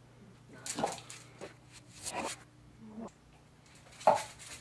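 A dog making a few short snuffling and scuffling sounds at play, over a low steady hum, with one sharper sound about four seconds in.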